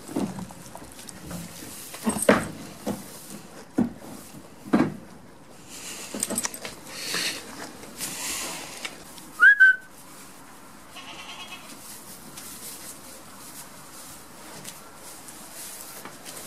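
Goats jostling at a wooden pen as they are hand-fed: several sharp knocks against the boards in the first five seconds, then a rustle of hay. About nine and a half seconds in comes one short, high whistling note, the loudest sound in the stretch.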